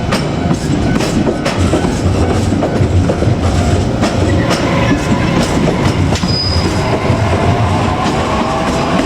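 JR Kyushu 817 series electric multiple unit running on the rails, with a steady rumble and irregular clacks over the rail joints. A rising whine comes in during the last few seconds.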